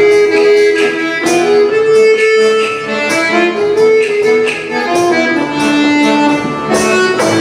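Diatonic button accordion (organetto) playing a folk dance tune, its reeds sounding a melody over chords, with a tamburello frame drum struck along and its jingles rattling.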